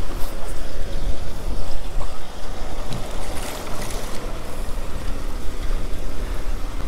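Wind and sea noise on a small open boat at sea: a steady rushing with an uneven low rumble.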